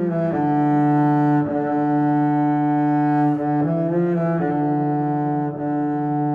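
Background music: a slow melody of long held notes over a low sustained bass, the notes changing every second or two.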